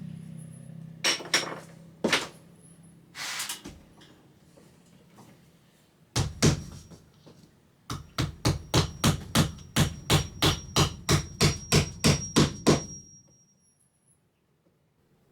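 Hammer striking nails: a few scattered blows, then a quick even run of about twenty strikes at roughly four a second that stops sharply a couple of seconds before the end.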